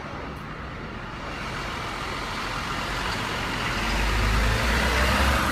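Truck engine running and growing louder, with a deep rumble building from about four seconds in.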